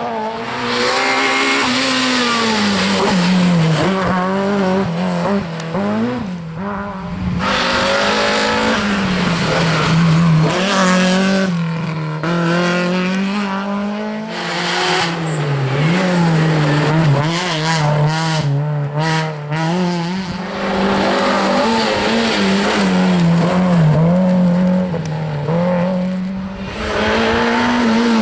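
Rally cars on a closed stage revving hard, with the engine pitch rising and falling repeatedly as they brake, change gear and accelerate through a tight junction, and tyres squealing.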